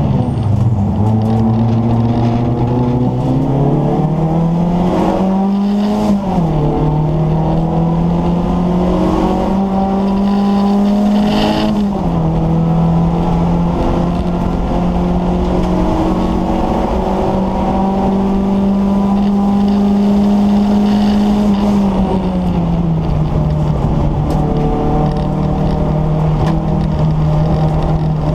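Ford Escort XR3i race car's four-cylinder engine running hard under load, heard from inside the stripped, roll-caged cabin. The revs climb slowly and drop sharply at two upshifts, about six and twelve seconds in, then hold steady before easing lower about twenty-two seconds in.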